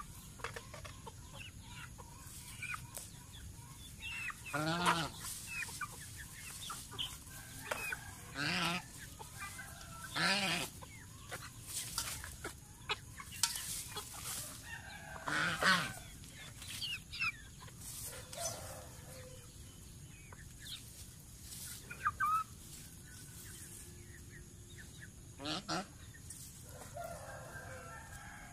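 Young chickens clucking and squawking in scattered calls while feeding alongside geese, with short clicks in between.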